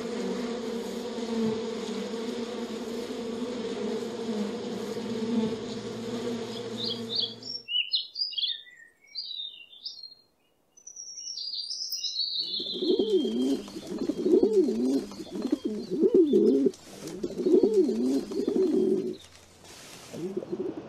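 Honeybees buzzing steadily on the comb, cut off about seven seconds in. A small songbird then gives scattered high chirps. From about twelve seconds a pigeon coos in repeated rising-and-falling phrases, fading down near the end.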